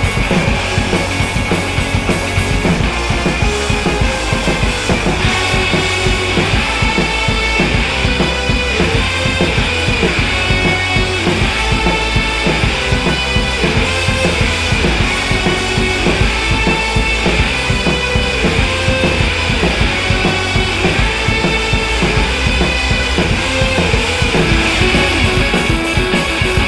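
Background music with drums keeping a steady beat.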